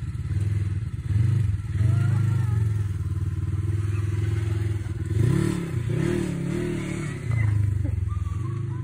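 Engine of a side-by-side off-road vehicle running, with the revs rising and falling briefly about five seconds in.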